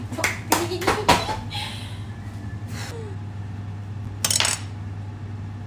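Dishes and cutlery clinking and knocking: a few sharp knocks in the first second and a short cluster of clinks a little after four seconds, over a steady low hum.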